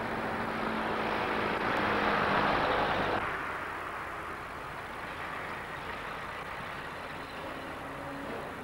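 Ambulance van driving past, engine and tyre noise swelling to its loudest about two to three seconds in, then fading as it moves away.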